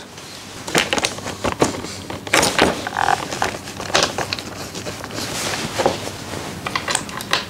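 Irregular clicks and light knocks of metal bolts and bushes being handled and started by hand into a motorcycle's rear tray.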